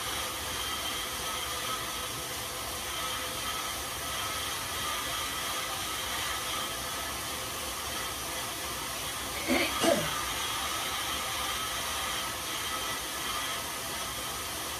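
Steady whir of a road bike's tyres and drivetrain spinning on indoor rollers, ridden at a hard interval effort. About nine and a half seconds in, a short sound falling in pitch breaks through briefly.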